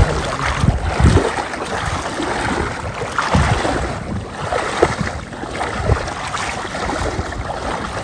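Wind buffeting the microphone, with irregular low rumbles and water sloshing.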